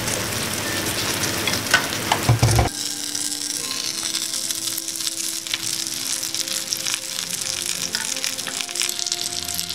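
Food sizzling in a frying pan, with a few knocks of utensil against pan about two seconds in. The sound changes abruptly about three seconds in to a lighter, higher sizzle that carries on.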